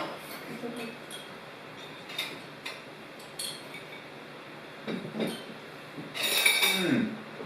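Scattered light clinks and taps of cutlery on dishes. Near the end comes a short, loud, breathy exclamation with a falling voice.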